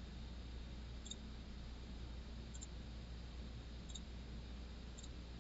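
Faint computer mouse clicks, four of them spaced a second or so apart, over a low steady hum and hiss.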